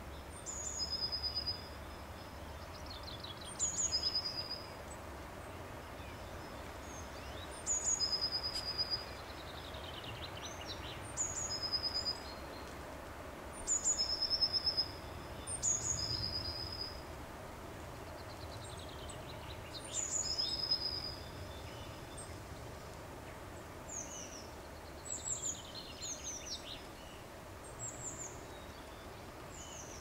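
A songbird singing short, high phrases every few seconds, each a quick downward-sliding run of notes ending on a brief held note, about a dozen phrases in all, over a steady low background rumble.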